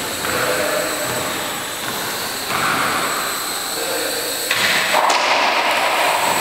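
Small RC quadcopter's electric motors and propellers whining in flight, the buzz shifting in pitch and level as the throttle changes, louder in the last couple of seconds.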